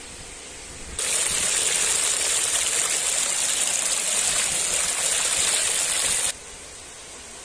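Shallow water rushing and splashing over a concrete edge, a steady hiss that starts suddenly about a second in and cuts off suddenly a little after six seconds.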